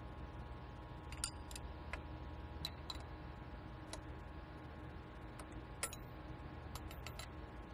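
Irregular light metallic clicks of open-end wrenches on a manifold tube's B-nut fitting as the nut is run down, with a backup wrench holding the fitting. A steady hum runs underneath.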